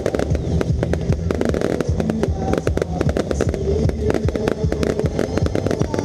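Fireworks display firing a dense barrage: many shells bursting in rapid, overlapping bangs and crackles, over the show's music soundtrack.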